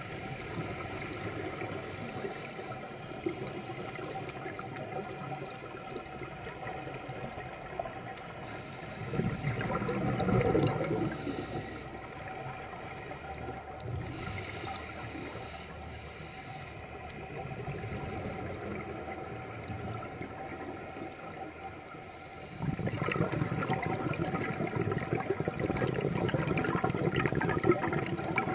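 Underwater ambience with the bubbling rumble of scuba divers' exhaled regulator bubbles. It swells loudly for a couple of seconds about ten seconds in, then again from about two-thirds of the way through.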